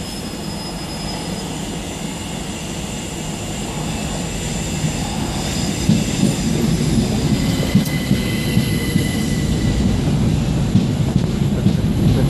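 Passenger train running on the rails: a steady low rumble that grows louder about halfway through, with thin high-pitched squealing tones above it.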